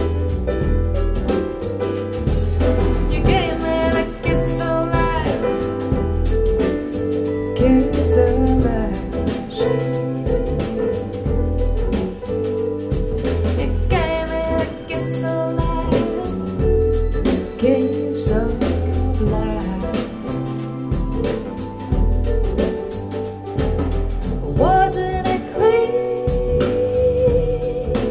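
A live song with a female singer, guitar and band, played back through KEF R3 Meta bookshelf speakers driven by an SMSL AO300 Class D integrated amplifier as a listening sample.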